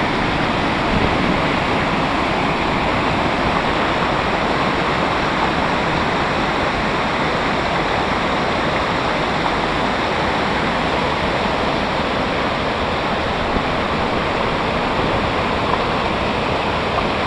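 Whitewater pouring over a weir and churning in the rapids below it: a steady, loud rush of water.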